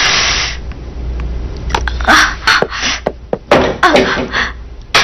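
A person crying, with short sobs and sharp breaths, after a brief rush of noise at the very start.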